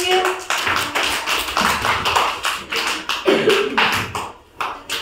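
A group of children clapping and tapping with their hands, a rapid, uneven run of many sharp claps.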